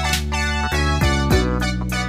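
Background music: an upbeat keyboard tune in quick, even notes over a sustained bass.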